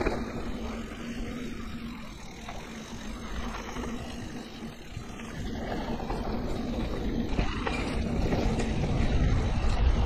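Wind rumble on the camera microphone and tyres rolling over a dirt trail as a mountain bike descends forest singletrack at speed; the rumbling noise grows louder over the last few seconds.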